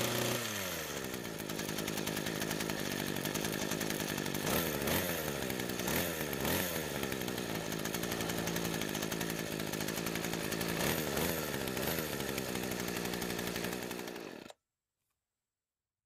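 Small two-stroke string trimmer engine running after its flood has been cleared: the revs drop to idle in the first second, then the throttle is blipped several times, around five to six seconds in and again near eleven seconds. The sound cuts off abruptly near the end.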